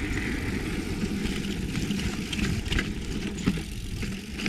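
Mountain bike rolling down a dirt trail: a steady rumble of wind and tyres on the ground, with a few sharp rattling clicks from the bike over bumps between about two and a half and three and a half seconds in.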